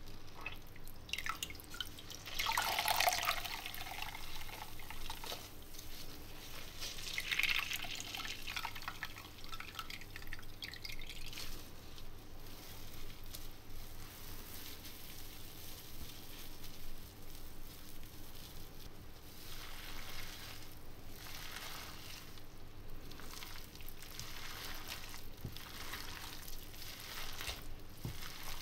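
Water splashing and dripping into a glass bowl as a soaked bread roll is squeezed out by hand, loudest twice in the first ten seconds. Later come fainter wet squelches as the bread is torn into raw minced beef and mixed by hand.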